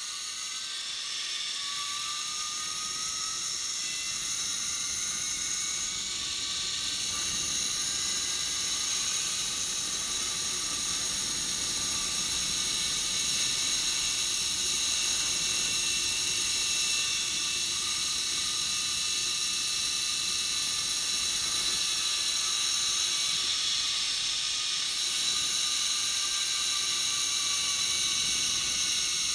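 Zipline trolley's pulley wheels running fast along the steel cable: a steady high whine with several tones over a rushing noise. It rises a little in pitch and grows louder over the first several seconds, then holds steady.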